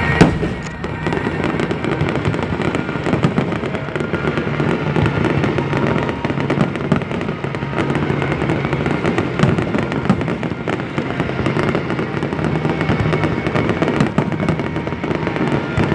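Aerial fireworks display: a dense, continuous crackling and popping of bursting shells, with one sharper loud bang just after the start.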